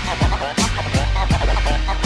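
Hip hop music: a steady beat with a heavy kick drum and deep bass, with short sliding sounds over it.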